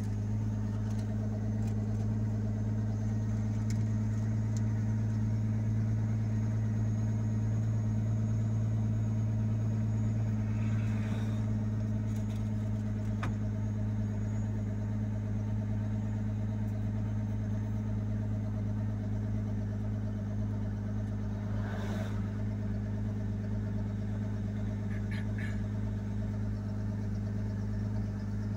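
Road vehicle's engine running steadily while driving, heard from inside the cab as a constant low drone. A couple of brief noises cut through about eleven and twenty-two seconds in.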